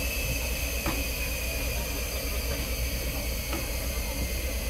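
Museum train running: a steady low rumble with an even hiss over it, and a couple of faint clicks.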